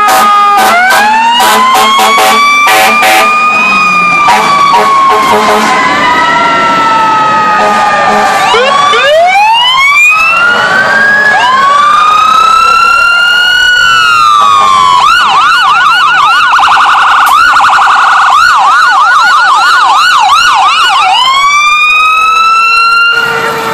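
Several fire engine sirens wailing at once, their pitches rising and falling and overlapping, switching to a fast yelp for several seconds in the middle. A run of sharp clicks sounds in the first few seconds.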